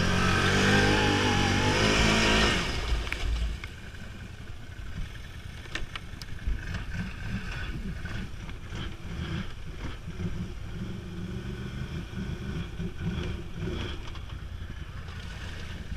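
ATV engine revving hard for the first couple of seconds, its pitch rising and falling, then dropping back to a quieter, uneven low running with a few sharp knocks.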